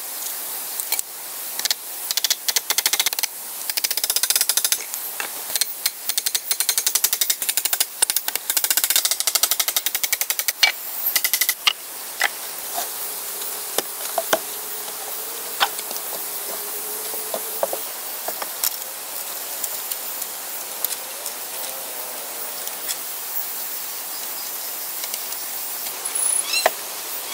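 Hammer driving nails into wooden planks, in rapid, closely spaced strokes for the first half. Then only a few scattered knocks and wooden clatter over a steady high hiss.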